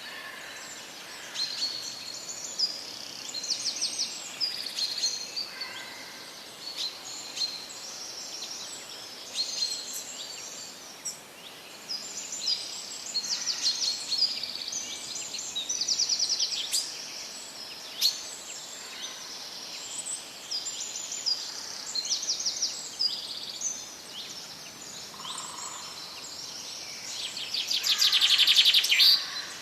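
Birds singing and chirping over a steady background hiss: many short chirps and fast trills overlap throughout, the loudest a rapid trill near the end.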